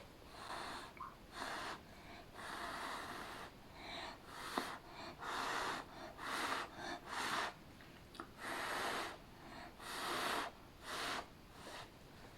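About a dozen short puffs of blown air, each under a second with brief gaps between, pushing wet acrylic pour paint outward into a bloom.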